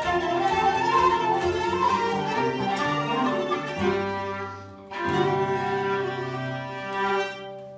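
Folk ensemble of hurdy-gurdy, nyckelharpa, violin, flute and acoustic guitar playing an old English dance tune over a steady drone. About five seconds in the melody settles into a held final chord that fades near the end.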